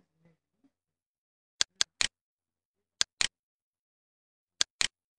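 Computer mouse clicks: three quick groups of two or three sharp clicks, a little over a second apart, the double-clicks of opening folders in a file dialog.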